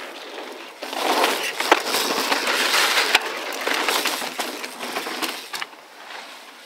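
Mountain bike tyres crunching over a loose dirt and gravel trail, with a few sharp knocks from the bike. The noise swells about a second in and fades after about five seconds.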